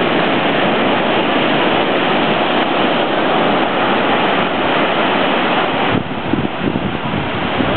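Ocean surf breaking and washing up over a sandy beach: a steady, loud rush of foaming water. About six seconds in, the rush drops a little and turns uneven, with gusty low rumbles.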